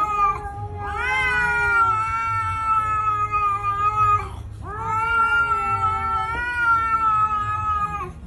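Domestic cat yowling at another cat face to face: a short cry, then two long, drawn-out yowls of about three and a half seconds each, each rising at the start and then holding steady. It is a threat yowl, a warning to the other cat.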